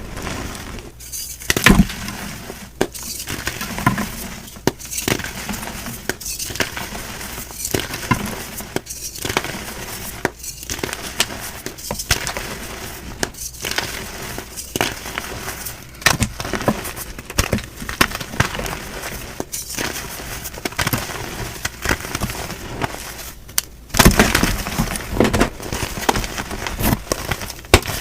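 Blocks of gym chalk being crushed and crumbled, a dense run of crisp, brittle crunches and cracks that gets louder and busier near the end.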